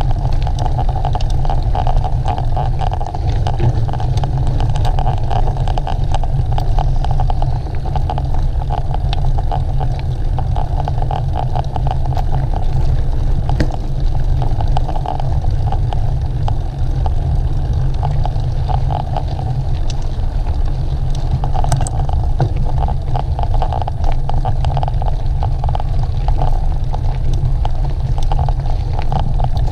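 Heavy wind rumble on the microphone of a moving camera, over a steady stream of small rattles and clicks.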